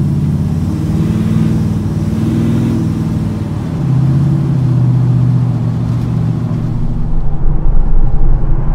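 1978 Chevy C10 pickup's engine and exhaust, running through Flowmaster Hush Power HP2 mufflers, heard from inside the cab on the move: a steady low drone. It eases off about three and a half seconds in, then grows louder again. Near the end a louder, uneven low rumble comes in.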